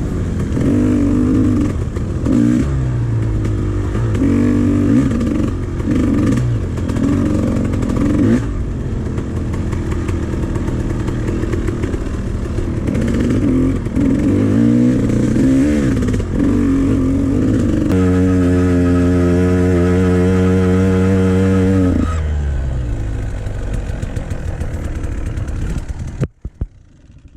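Dirt bike engine running loud, its revs rising and falling, then held at a steady pitch for about four seconds before falling away. The sound drops off abruptly near the end.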